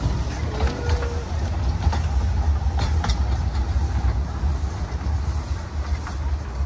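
Small narrow-gauge steam train running on the rails, a steady low rumble with a few sharp clicks from the track.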